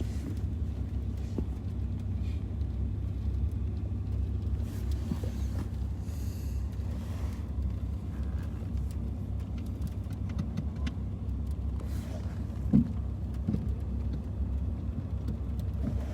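Steady low rumble of a car heard from inside the cabin, with one short knock late on.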